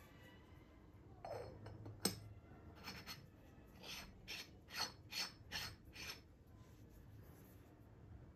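A purple-clay Yixing teapot and its lid handled in gloved hands. There is a sharp clay click about two seconds in, then about eight short rasping rubs, roughly two a second.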